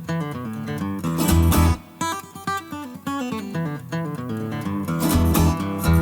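Background music: an acoustic guitar track with plucked and strummed notes over a bass line.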